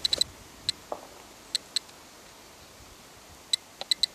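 Terra-P dosimeter clicking: about ten short, high clicks at irregular, random intervals, some in quick clusters and others spaced out, each one a counted particle. The sparse rate matches the display's normal background of about 0.15 µSv/h.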